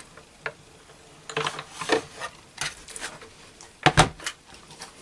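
Manual die-cutting and embossing machine being worked by hand: its crank turning and its plastic cutting plates sliding and knocking in a few irregular clacks and rubs. The loudest knock comes about four seconds in.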